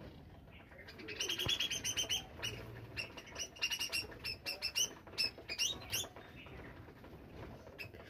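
A flock of budgerigars chirping in a quick, busy run of sharp high calls, with wings fluttering as birds flap on and off the feed bowl. The chirping starts about a second in and dies down after about six seconds.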